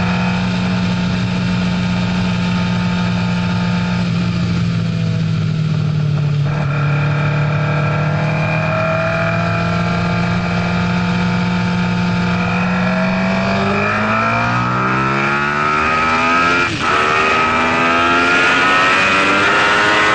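MV Agusta F4 RR's inline-four engine heard from onboard, running at steady revs at first. About two-thirds of the way in it accelerates hard: the note climbs steadily, breaks briefly for an upshift about three seconds before the end, then climbs again.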